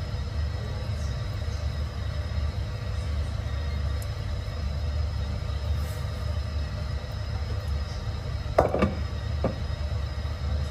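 Steady low rumble of a moving vehicle heard from inside, with two short knocks near the end.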